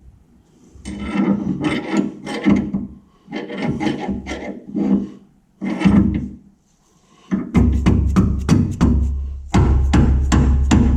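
Hand-tool work on a Panhard bar mount: repeated quick rasping strokes in short runs. From about seven and a half seconds a steady low hum starts under continued fast strokes.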